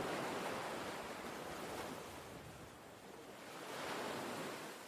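Ocean waves washing onto a shore, in two swells of surf. The second swell comes about three and a half seconds in, and the sound fades out at the end.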